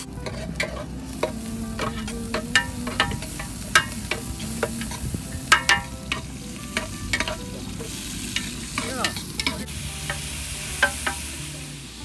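A utensil stirring food in a cooking pot while it fries, with irregular sharp clinks and scrapes against the pot over a sizzle.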